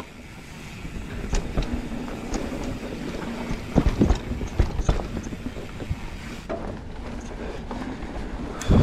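Mountain bike riding down a technical dirt trail: tyres rolling over dirt and roots with irregular knocks and rattles from the bike, and a heavy thump near the end.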